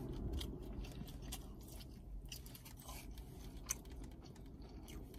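Close-up chewing of Chinese takeout food, with scattered soft crunches and wet mouth clicks over a low steady hum.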